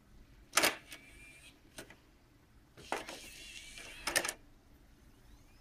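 A few sharp clicks and short mechanical whirs from the Xbox One's Blu-ray disc drive working its tray, with no grinding, since the misaligned gear has been knocked back into place.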